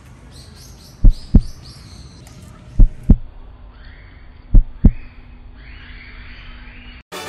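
Footsteps jolting a handheld phone, heard as low thumps in pairs about every second and a half, which stop about five seconds in. Birds chirp faintly behind them.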